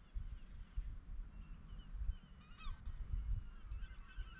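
Birds calling in short whistled chirps, breaking into a quick run of repeated chirps near the end, over an uneven low rumble on the microphone.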